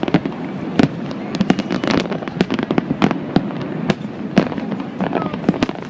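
Fireworks display: many sharp bangs going off in quick, irregular succession over a continuous rumble of further explosions.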